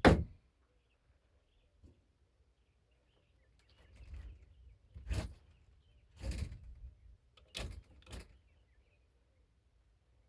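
One last hammer strike on wood right at the start, then a quiet stretch, then a few softer knocks and bumps of wood about four to eight seconds in, the last two close together.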